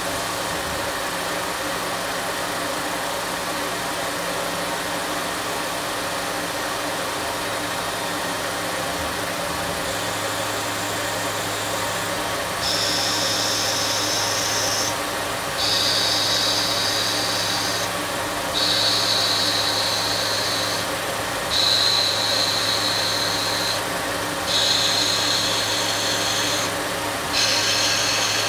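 Tormach CNC mill spindle running, spinning a brass rod against a stationary turning insert, used as a lathe. Partway in, a repeating high-pitched cutting sound begins: about six turning passes of two to three seconds each, with brief breaks between them.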